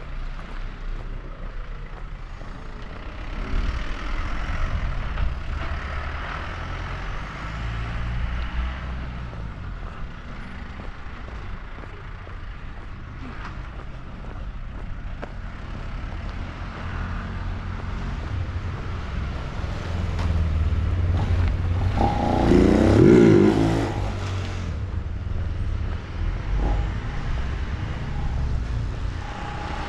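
Wind buffeting the microphone with a steady low rumble. About 22 seconds in, a motor vehicle passes close by, its engine rising in pitch; this is the loudest moment.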